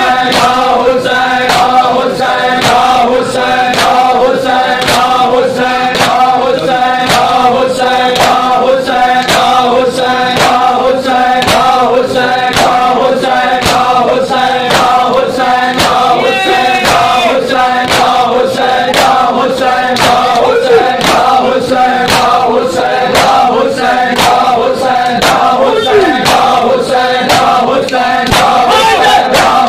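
A group of men chanting a noha in unison while hands strike bare chests in a steady beat of sharp slaps: matam, the Shia mourning chest-beating.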